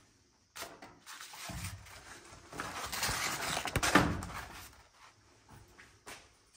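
Scraping and rustling noises build up to a sharp knock about four seconds in, then fade.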